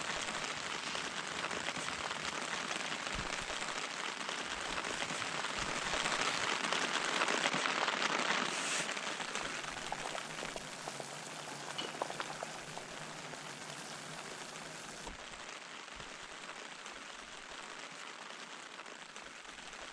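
Portable gas cartridge stove burning, its burner giving a steady hiss that swells for a few seconds and then eases off a little.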